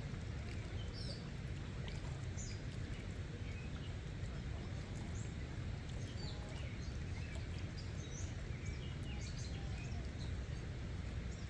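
Birds chirping, with many short high calls scattered throughout, over a steady low rumble.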